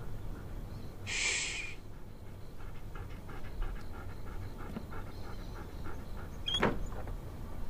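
A small dog-like animal panting in quick, even breaths, about five a second, with a short hiss about a second in and a sharp high squeak near the end.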